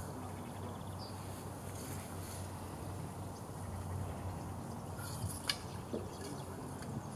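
Outdoor lakeside ambience: a steady low hum with a few faint bird chirps, and one sharp click about five and a half seconds in.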